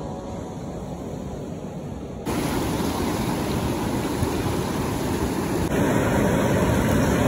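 Ocean surf breaking and washing over rocks: a steady rush of water that jumps suddenly louder about two seconds in and again near six seconds.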